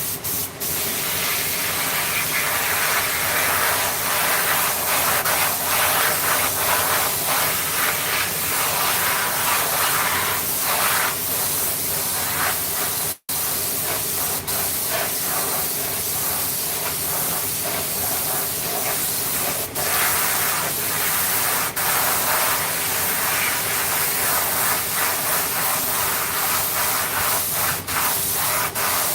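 A steady hiss of rushing air or spray, cut off abruptly for a moment about 13 seconds in and briefly interrupted a few more times near the end.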